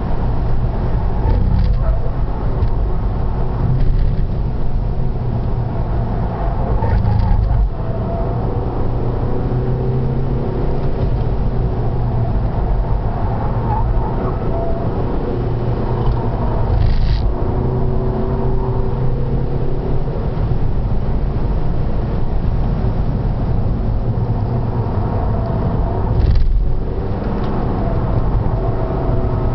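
Seat Altea FR's engine running hard on a circuit lap, heard onboard over tyre and wind noise, its pitch rising and falling through the corners. There are two brief breaks in the sound, about eight seconds in and near the end, as at gear changes.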